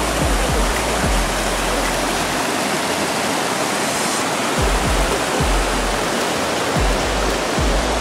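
Small mountain stream rushing and splashing down over rocks, a steady, loud, full rush of water. Low thumps come now and then underneath.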